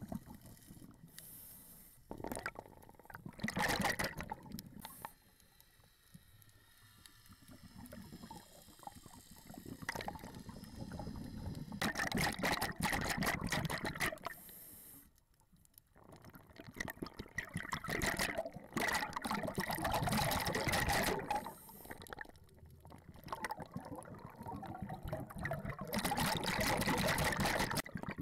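Underwater sound of a scuba diver's exhaled bubbles rushing out of the regulator in four long bursts of a couple of seconds each, roughly every six to eight seconds, with quieter water noise between.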